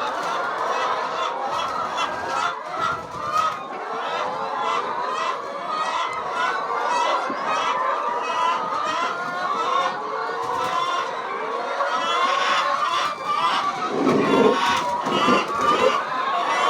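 A large flock of several hundred chickens clucking and calling all at once, a dense, steady din of overlapping calls. About fourteen seconds in, louder and lower-pitched calls stand out for a couple of seconds.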